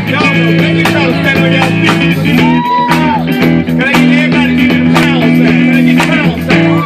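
Loud band music: guitar lines over held low bass notes, with drum hits.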